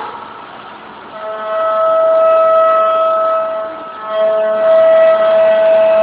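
Milling cutter on a Mikron HPM1150U machining centre cutting metal, a steady high-pitched whine with overtones. It swells about a second in, dips briefly near four seconds, then comes back.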